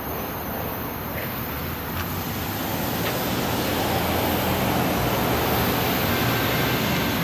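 Norfolk Southern diesel freight locomotive approaching, its low engine rumble slowly growing louder over a steady background hiss.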